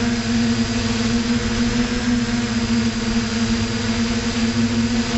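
FPV drone's electric motors and propellers humming at a steady pitch, with a thin high whine and wind hiss, heard from the aircraft's own onboard camera.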